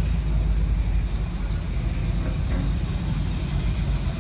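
Car engine running, a steady low rumble.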